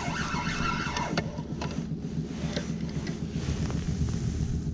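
Small outboard motor running steadily at trolling speed, a low even hum, with a few faint clicks over it.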